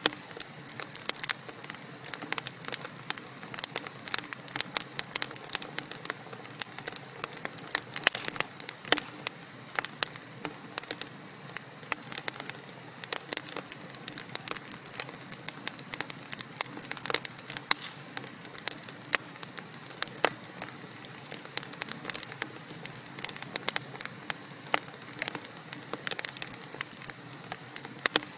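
Wood fire in a fireplace, logs crackling and popping with many small irregular snaps over a steady low hiss of burning.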